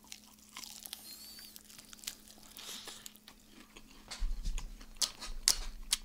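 Close-up eating sounds: crispy Kyochon Red Combo fried chicken being bitten into and chewed, with irregular crunches and crackles of the crust that grow busier and louder in the second half.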